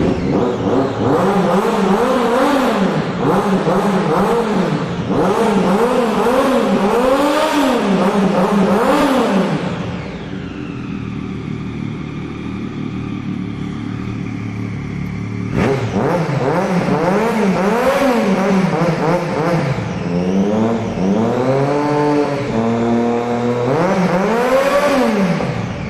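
Triumph Daytona 675's three-cylinder engine through a Coyote SS2 aftermarket exhaust, revved again and again in quick rises and falls of pitch. About ten seconds in it drops back to idle for five seconds, then the revving starts again.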